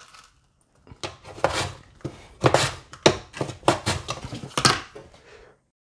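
Vegetable slid back and forth over the blade of a plastic mandoline slicer: a run of short scraping slicing strokes, about two a second, starting about a second in.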